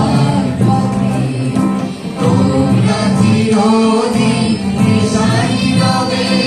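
A mixed chorus of young male and female voices singing a Bengali patriotic song together, accompanied by harmonium, tabla and acoustic guitar.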